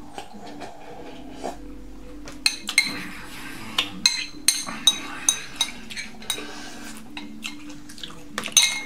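Metal spoon scraping and clinking against a clear glass bowl as the last of the cereal is scooped out. From about two and a half seconds in there is a string of sharp clinks with a ringing tone.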